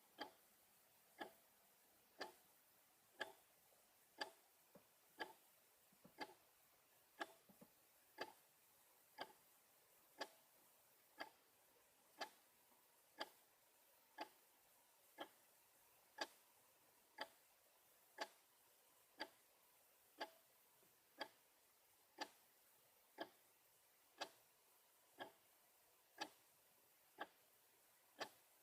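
Clock ticking steadily, one sharp tick about every second, with a few fainter extra clicks between ticks partway through.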